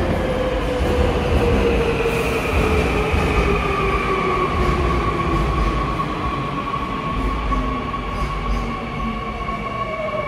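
A Seoul Subway Line 2 electric train braking into the station, with a low rumble and several whines that fall slowly in pitch as it slows.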